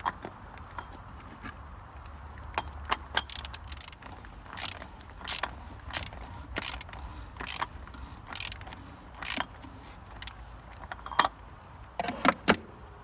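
Socket ratchet wrench clicking in repeated short strokes, about one a second, then a few sharper clicks near the end, as a fastener is worked during an oil change.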